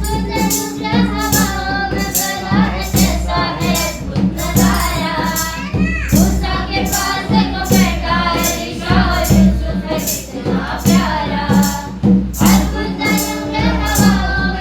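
Hindi Christian worship song: singing voices over a steady beat with tambourine and bass.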